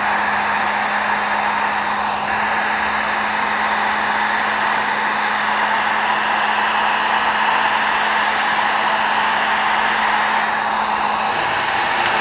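Handheld electric heat gun blowing hot air: a steady rush of air with a low motor hum, shrinking a grip wrap onto a fishing rod handle.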